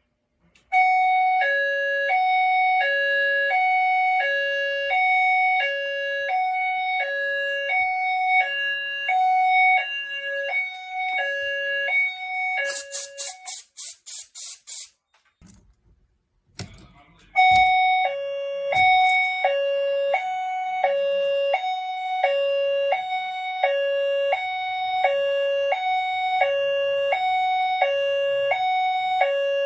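Fire alarm sounder sounding a two-tone hi-lo signal, alternating between a higher and a lower pitch about once a second. About 12 seconds in, the tone stops and rapid, very high-pitched pulses follow for about two seconds. After a pause with a few clicks, the hi-lo tone starts again about 17 seconds in.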